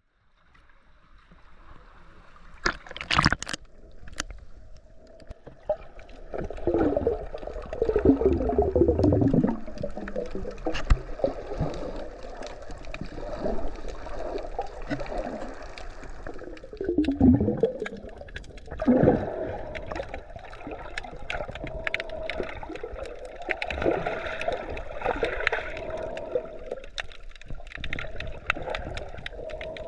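Underwater sound through a GoPro's waterproof housing: muffled water movement and gurgling, with a few sharp knocks about three seconds in and scattered clicks.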